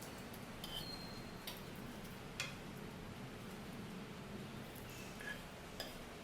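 A few small, sharp clicks and light clinks, irregularly spaced and the loudest about two and a half seconds in, over a faint steady hiss.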